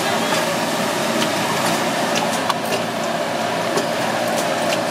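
Oil in a deep fryer sizzling steadily with scattered small crackles as battered cubes fry.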